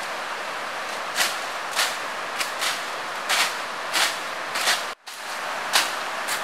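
Machete strokes swishing and chopping through undergrowth and soil, short sharp strikes coming every half second to a second over a steady background hiss. The sound drops out briefly about five seconds in.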